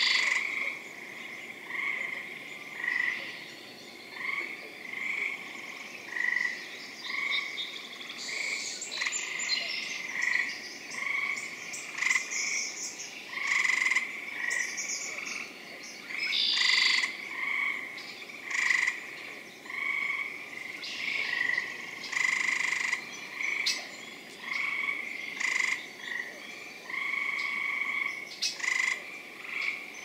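Spring frog chorus: many frogs calling at once, short overlapping calls repeating about every second without a break. A few higher, brighter calls are mixed in.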